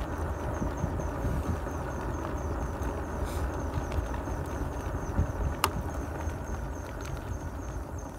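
Wind rushing over a phone microphone with low road rumble while riding a seated electric scooter, with a faint high ticking about four times a second and a single sharp click about five and a half seconds in.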